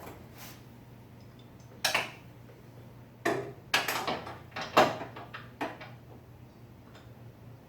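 Metal hand tools clanking, a handful of sharp knocks about two to six seconds in, over a low steady hum.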